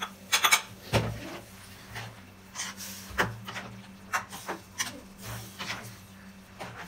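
A metal ladle scraping and knocking against a frying pan as vegetables are stirred, in irregular strokes, with a quick cluster of clinks just after the start.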